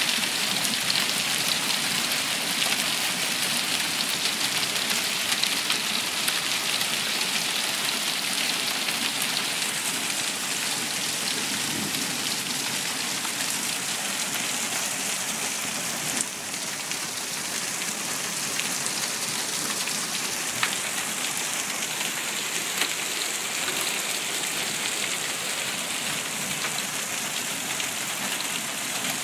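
Hail falling steadily, a dense patter of many small stones striking the pavement.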